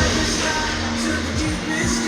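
Background music: a pop track with singing.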